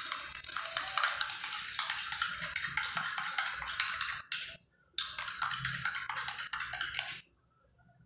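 Metal spoon stirring coffee with powdered milk in a drinking glass, clinking fast and steadily against the glass. It pauses briefly just after four seconds in, starts again, and stops about seven seconds in.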